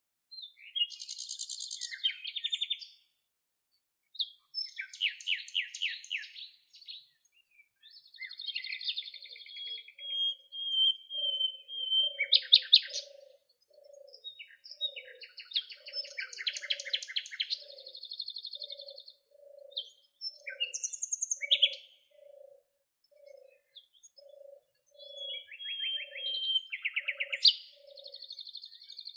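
Birds singing in repeated phrases of rapid trills and chirps, with short pauses between phrases. From about ten seconds in, a lower call note repeats steadily, a little over once a second, underneath the song.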